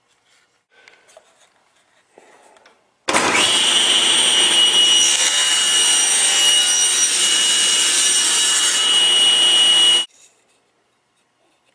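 An electric power tool running steadily for about seven seconds with a high whine over a dense rushing noise, starting suddenly about three seconds in and cutting off suddenly. Faint knocks and handling sounds come before it.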